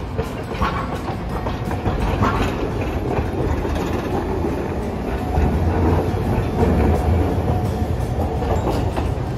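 Hiroshima Electric Railway 800-series tram passing close by on street track: a steady rumble of wheels on rail, with sharp clacks about half a second and two seconds in, growing loudest a little past the middle as the car goes by.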